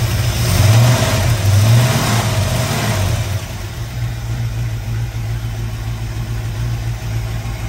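Freshly rebuilt small-block Chevy 350 V8 with a Howard cam, on its first run, given a couple of light revs by hand at the carburetor linkage and then settling to a steady idle about three seconds in.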